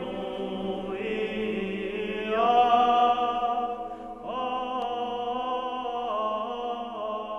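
Slow choral chant: voices hold long notes over a steady low drone, moving to a new chord every second or two, with a brief break about four seconds in.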